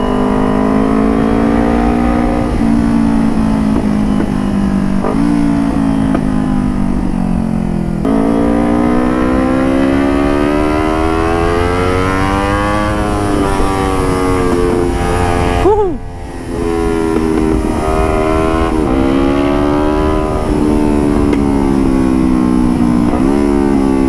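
Motorcycle engine on a carbon aftermarket DX exhaust, heard while riding. The exhaust note rises and falls as it accelerates and eases off, with a brief break about sixteen seconds in, like a gear change, before it pulls up again.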